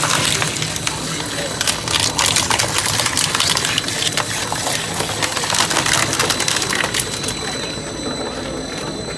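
Shredder's rotating toothed cutters crushing and tearing green tender coconut shells and husks: a dense run of cracking and crunching over the steady noise of the running machine. The cracking thins out near the end.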